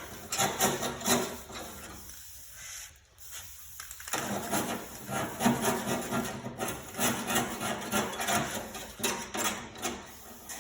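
Hand scraper scraping rust off a steel lawn-tractor mower deck in repeated, irregular strokes, with a brief lull about two seconds in.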